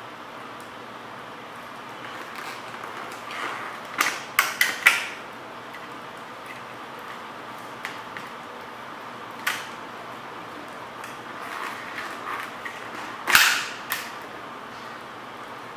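Sharp plastic clicks and snaps as a motorcycle helmet's polycarbonate visor is pried out of its side pivot mounts. A quick cluster of four clicks comes first, then single clicks, with the loudest snap near the end, over a steady faint hiss.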